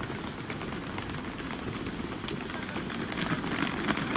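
Railway station ambience beside a standing double-decker passenger train: a steady low rumble and hiss with scattered faint clicks, getting a little louder about three seconds in.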